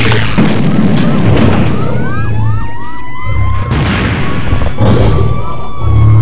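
Emergency-vehicle siren sound effect. It comes in about two seconds in with a few quick up-and-down sweeps, then settles into one long, slowly falling wail. A series of deep booms runs throughout.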